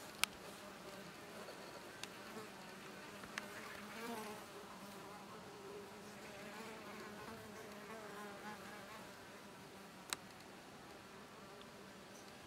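Faint buzzing of insect wings, wavering in pitch, broken by four sharp clicks, the loudest just after the start.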